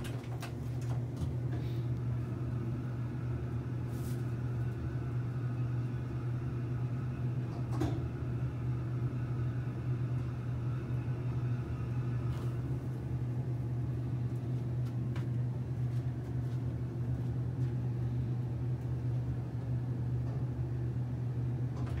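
Passenger elevator car riding between floors: a steady low hum of the moving car, with a few faint clicks along the way.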